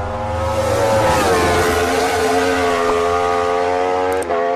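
Race-car engine sound effect held at high revs, its pitch dipping slightly about a second in and breaking off briefly near the end.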